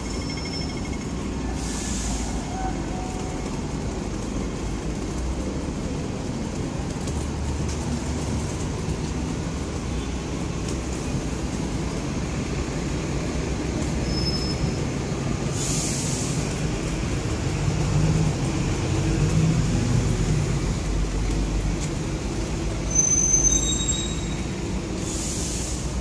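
Street traffic noise: a steady low rumble of buses and cars passing close by, swelling past the middle, with a few brief high-pitched squeals and short hisses.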